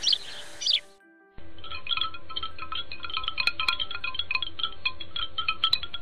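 A few falling bird chirps, then from about a second and a half in a dense, rapid tinkling of wind chimes over a low steady hum.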